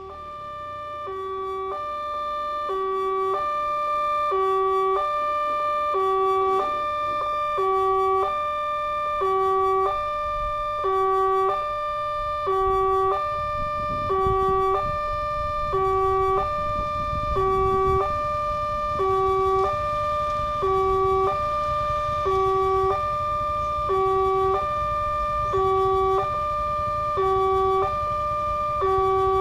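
Railway level-crossing warning alarm sounding as a train approaches: an electronic two-note chime alternating low and high, about one pair every 1.7 seconds, starting up at the beginning. A low rumble builds from about halfway.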